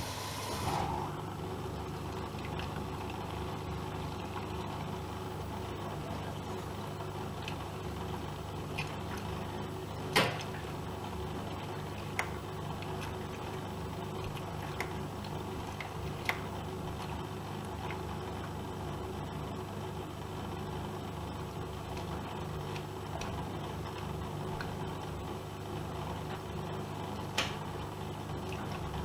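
AEG Öko-Lavamat Lavalogic 1600 washing machine running with a steady motor hum, and a few sharp clicks or knocks from inside, the loudest about ten seconds in.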